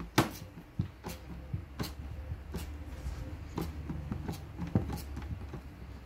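Irregular small clicks and taps of a hand screwdriver working a small screw into the metal channel of a Land Rover door top, over a faint low rumble.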